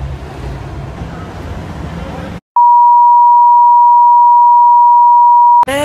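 City street noise with a low traffic rumble. It cuts off, and after a brief gap a loud, steady, pure test tone of about 1 kHz plays for about three seconds, the tone that goes with broadcast colour bars, and stops abruptly.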